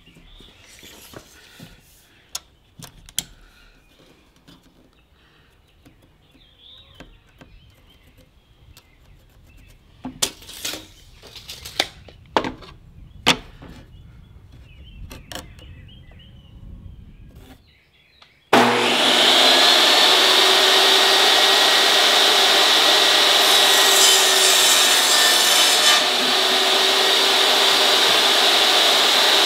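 Portable jobsite table saw starting up and running loudly and steadily, cutting 2x3 lumber to length. Before it starts there are only light clicks and taps of measuring and pencil-marking the boards.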